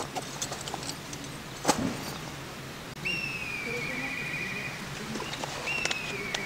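Black kite calling twice, about three seconds apart. Each call is a high whistle that drops slightly and then breaks into a quavering trill. A single click comes about two seconds in.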